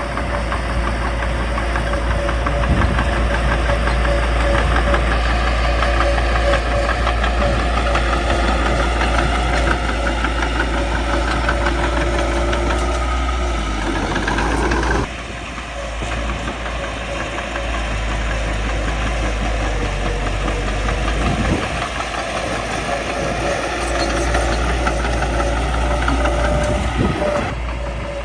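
Caterpillar D3C bulldozer's diesel engine running steadily with a knocking rumble. Its pitch climbs for a couple of seconds about halfway through, then the sound drops and changes abruptly.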